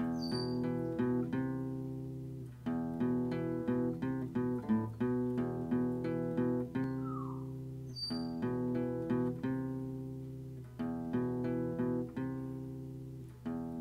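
Background music: acoustic guitar playing a run of plucked notes, with a short sliding note about every eight seconds.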